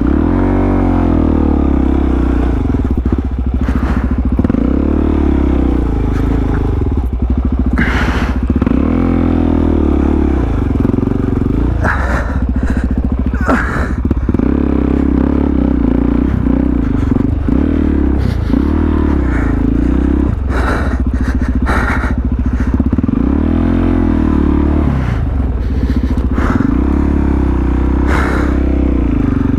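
Supermoto motorcycle engine revving up and down over and over as it is ridden over rough dirt, with scraping and clattering throughout. The rider keeps working the throttle while the street tires struggle for traction.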